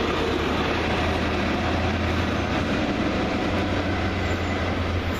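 Diesel train running at the station: a steady low engine hum over constant rail rumble.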